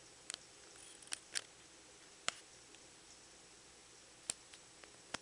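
Heavy rain heard faintly as a steady hiss, with a handful of sharp ticks at irregular intervals.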